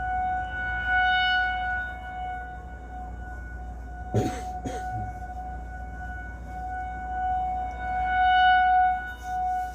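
Distant Federal Signal 2001 rotating outdoor warning siren sounding a steady tone during a test, swelling and fading as it turns; the recorder believes this unit is still broken. Two brief, sharp sounds with a quickly falling pitch cut in about four seconds in.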